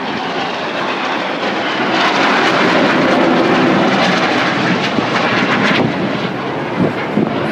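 Display aircraft flying past low overhead. Their engine noise swells loud about two seconds in and eases again near six seconds.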